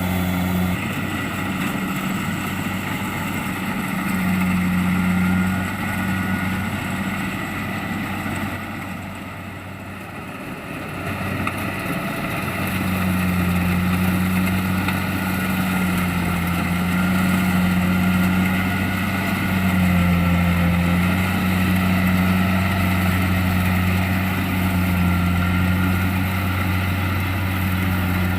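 Kubota DC-70 Plus combine harvester's diesel engine running steadily under load while harvesting rice, with a low, even drone. The sound dips for a couple of seconds about a third of the way in, then comes back louder.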